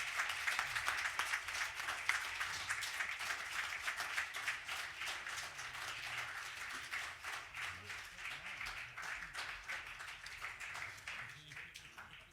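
Small audience applauding and clapping, gradually dying away and ending near the end.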